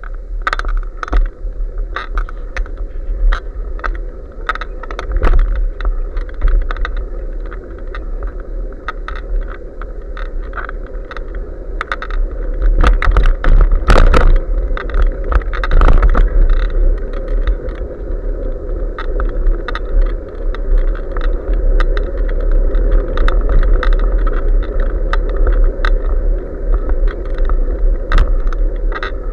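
Wind rushing over a bike-mounted action camera's microphone during a bicycle ride, with tyre noise and frequent clicks and rattles as the bike rolls over pavement; a cluster of louder knocks comes about 13 to 14 seconds in.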